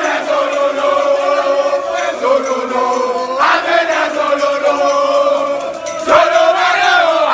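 A group of men singing a chant together in unison, holding long notes, with a new line starting every two to three seconds.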